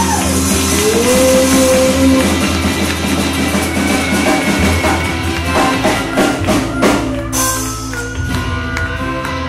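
Live rock band playing: bass, electric guitar and drum kit, with a run of drum hits building to a cymbal crash about seven seconds in, after which held chords ring on.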